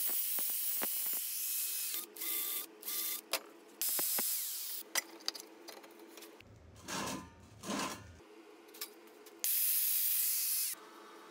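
Angle grinder with a cut-off disc cutting metal pipe and steel flat bar in several separate cuts, each a loud harsh hiss of the disc in the metal that stops abruptly. Between the cuts there are lower, duller handling noises.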